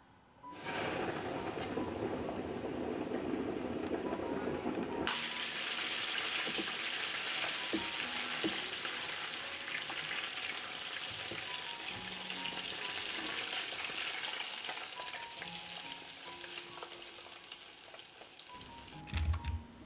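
Flour-coated chicken drumsticks deep-frying in hot oil: a loud sizzle starts suddenly about half a second in as the chicken goes into the oil, then a steady hissing, bubbling fry that slowly fades. A few light clicks of silicone tongs, and two low thumps near the end.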